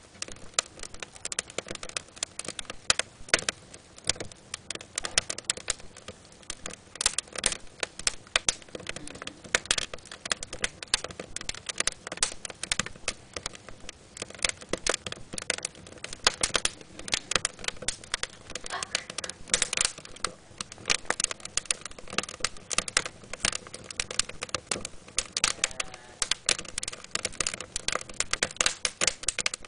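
Wood fire in a fireplace crackling, with frequent sharp pops and snaps at an irregular pace.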